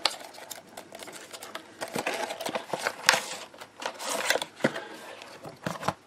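Cardboard retail box being opened by hand and its clear plastic tray slid out and set down: irregular scrapes, rustles and small clicks of card and plastic.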